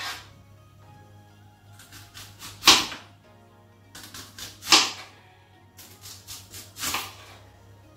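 Kitchen knife slicing a red onion into rings on a wooden cutting board: four sharp chops onto the board about two seconds apart, with lighter cuts between. Quiet background music runs underneath.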